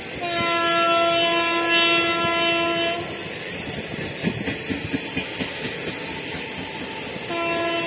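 Train horn of the WAG5 electric locomotive hauling an Indian Railways express: one steady blast of about three seconds, then a short blast near the end. In between, the passing coaches' wheels clatter and knock over the rail joints.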